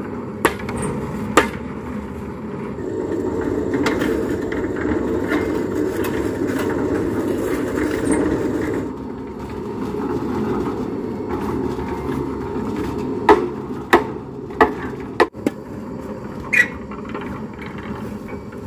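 Electric concrete mixer running steadily while mortar is tipped out into a wheelbarrow, with a louder rushing stretch of several seconds in the first half. Later come five or six sharp metal knocks, roughly a second apart, of tools striking the mixer drum and wheelbarrow.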